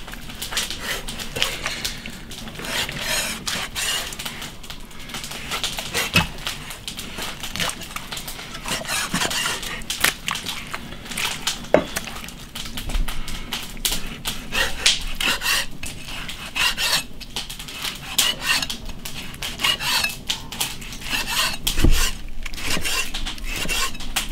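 Cleaver slicing beef tripe on a wooden chopping block: irregular taps of the blade on the wood, with a soft scraping and rubbing as the blade draws through the tripe.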